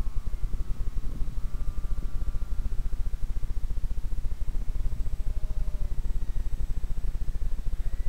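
Distant whine of a radio-controlled flying boat's motor and propeller, its pitch shifting and dropping lower during the second half, over a louder low fluttering rumble on the microphone.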